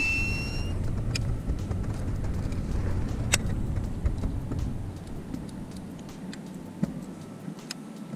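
Low wind rumble buffeting the microphone, loudest for the first five seconds and then easing, with a few small clicks. Right at the start comes a brief thin whine, typical of a baitcasting reel's spool paying out braided line on a cast.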